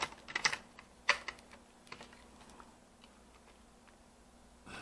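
A few sharp clicks and taps of hard plastic laptop parts being handled and fitted, bunched in the first second and a half, with a couple of fainter ticks after.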